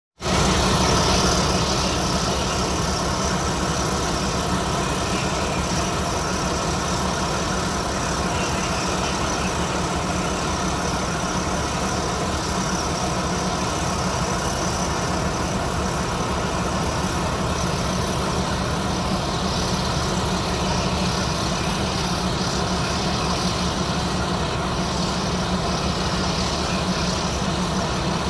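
Leopard 2 tank's V12 diesel engine running steadily as the tank slowly reverses up the ramp into a ship's vehicle deck.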